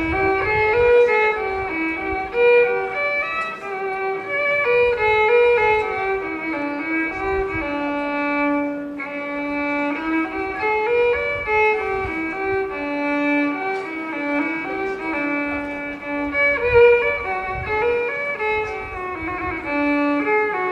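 Music: a bowed string instrument playing a melody of held notes that step up and down.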